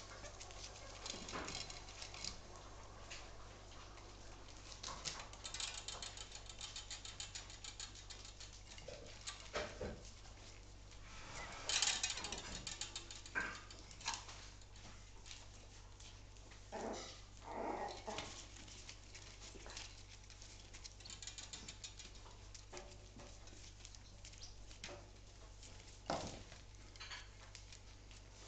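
West Highland White Terrier puppies scuffling on newspaper: paws scratching and rustling the paper, with a few short, louder puppy squeaks and yips, the loudest a little before the middle.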